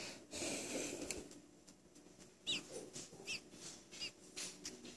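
A baby American robin nestling giving a few short, high peeps in the second half, the first the loudest, with soft rustling of it being handled on a towel in the first second. The nestling has just been hand-fed and is tired.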